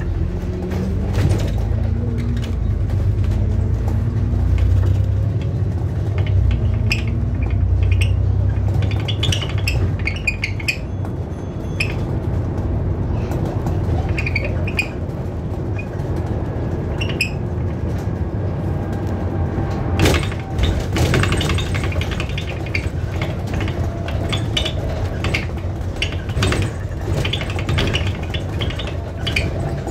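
Interior sound of an ADL Enviro400 MMC double-decker bus pulling away and driving on: a low engine and driveline drone with a whining note that rises as the bus picks up speed in the first few seconds, plus road noise. Scattered rattles and clicks of the bus's fittings run throughout, with one loud knock about twenty seconds in.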